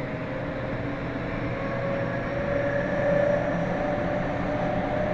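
Meitetsu 100 series electric train heard from inside a motor car: its Mitsubishi GTO-VVVF inverter and traction motors give a tone that rises slowly over the rail running noise as the train gains speed, growing a little louder.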